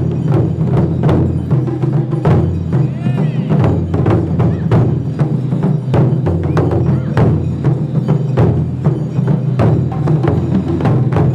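Percussion-led music: frequent drum hits and sharp wooden clacks over a steady low tone.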